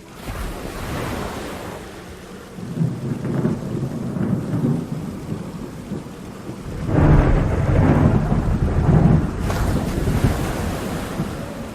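Thunder rolling over steady rain. The rumble builds in waves and is loudest about two-thirds of the way through.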